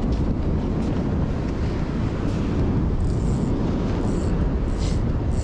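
Strong wind buffeting the microphone, a steady low rumble.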